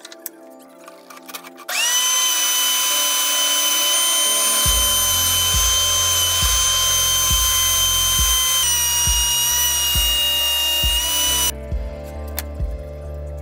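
DeWalt benchtop thickness planer running with a high whine, starting about two seconds in and cutting off near the end, with a slight drop in pitch partway through as it takes a walnut board.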